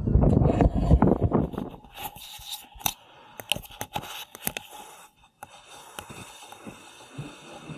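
A loud low rumble for about the first second and a half, then a run of sharp scrapes and clicks as the 360 camera and its rope rub and knock against the pier's chain-link fence and wooden railing while the camera is lowered over the side.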